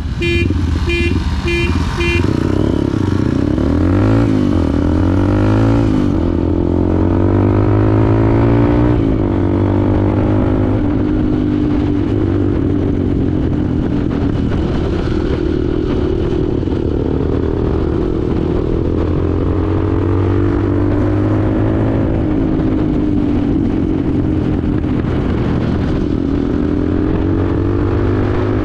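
Motorcycle engine accelerating hard through the gears, its pitch climbing and dropping at each shift over the first nine seconds or so, then running steadily at speed with wind rush. A quick run of short beeps sounds in the first two seconds.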